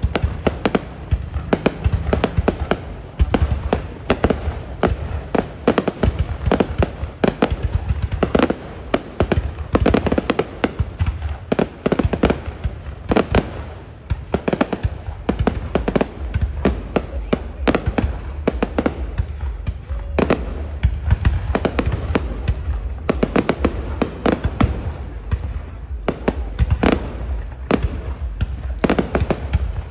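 Fireworks display: a dense, unbroken barrage of bangs and crackles, several a second.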